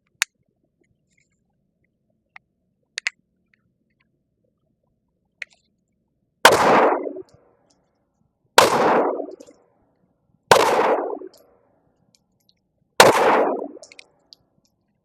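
Four shots from a Glock G44 .22 LR pistol, about two seconds apart, each trailing off over about a second. Before them, a few light clicks.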